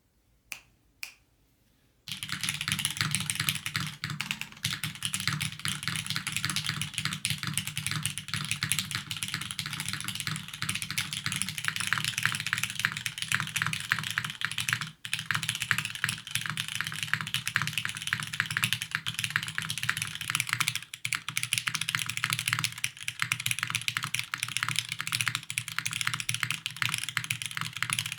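Fast, continuous typing on a Hoshino mechanical keyboard with lubed Cherry MX Black linear switches, an aluminium top-mounted plate and GMK keycaps. After two light clicks, the typing starts about two seconds in and runs on with only a couple of brief pauses.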